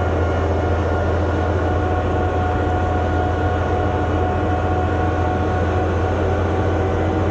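Engine of a heavy earth-moving machine running steadily under load, a constant low drone with a steady whine over it.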